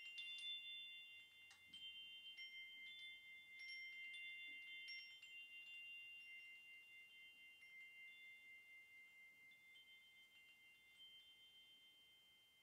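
Faint metal chimes struck several times in the first few seconds, their high tones ringing on and slowly fading away.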